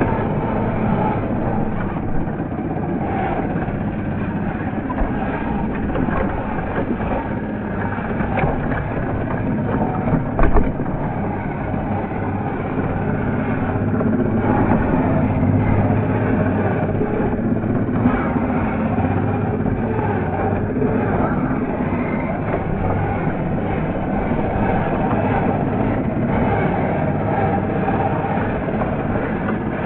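Small 1:12-scale RC crawler driving over loose rocky ground, its motor and gears running steadily under the crunch of stones beneath the tyres, with one sharp knock about ten seconds in.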